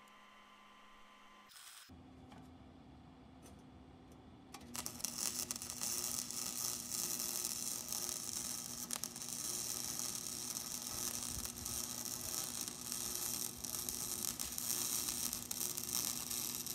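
Wire-feed welder arc crackling steadily on steel as a deadbolt holder is welded into a gate frame, starting about five seconds in. Before it, a click and a steady low hum begin about two seconds in.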